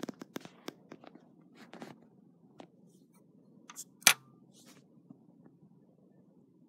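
Handling noise: a scatter of small clicks and taps in the first two seconds and one loud, sharp click about four seconds in as a hand brushes the phone.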